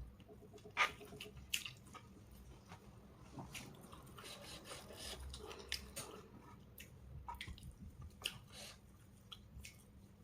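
Faint eating sounds: chewing with wet mouth clicks and small scattered taps, a few louder at about a second in and again near the end.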